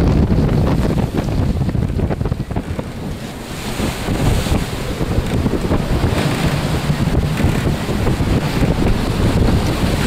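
Strong wind buffeting the microphone over the rushing hiss of waves breaking and water streaming past the hull of a racing yacht driving through heavy seas. After a short lull a few seconds in, the water's hiss grows louder.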